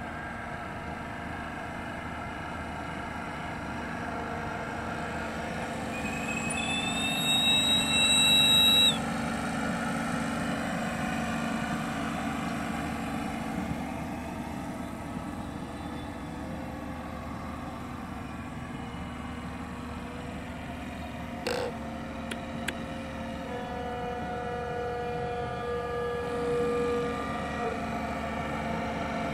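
Model steam boat running with a steady hiss, and about six seconds in a steam whistle sounds once for about two and a half seconds, sliding up slightly as it starts. A short click comes later.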